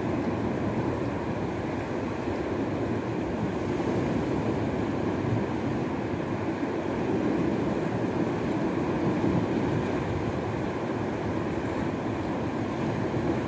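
Steady rushing noise of wind and sea with no distinct events.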